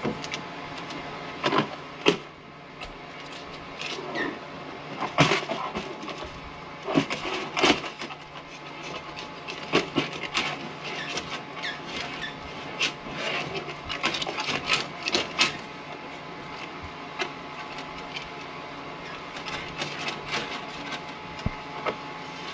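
Irregular clicks, scrapes and knocks of a steel fish tape and electrical cables being handled and worked through a ceiling opening and down inside a wall, over a faint steady hum.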